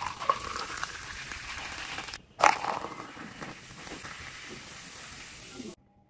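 Orange carbonated soft drink poured into a plastic cup, the stream splashing and the drink fizzing as the foam rises. There is a brief break about two seconds in, then a loud splash-and-fizz that slowly dies down, and the sound stops abruptly near the end.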